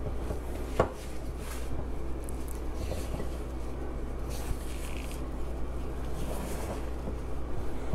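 Spatula stirring and folding stiff cookie dough in a glass mixing bowl: soft, irregular scraping, with one sharp knock about a second in. A steady low hum runs underneath.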